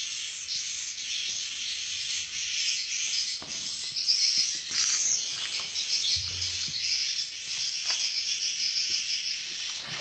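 Edible-nest swiftlets twittering: a dense, continuous high chirping, with a few soft low knocks about three and six seconds in.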